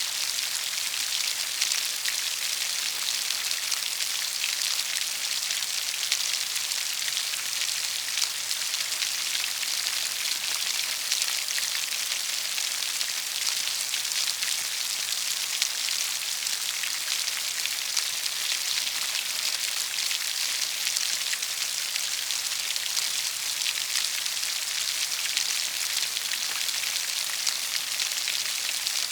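Steady rain falling, a dense, even patter of drops with a hiss that sits mostly in the high range and little low rumble.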